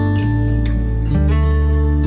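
Background music led by acoustic guitar over a steady bass, with a chord change about a second in.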